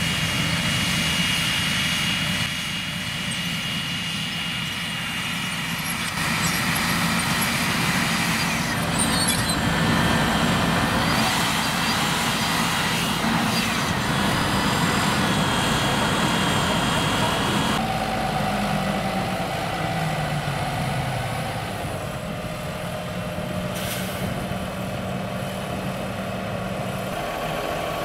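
Fendt 720 Vario tractor running under load while pulling a Väderstad Tempo V8 precision seed drill, with a steady hiss over the engine. About two thirds of the way through, the engine note falls away and settles to a lower, idling run. A single short knock comes near the end.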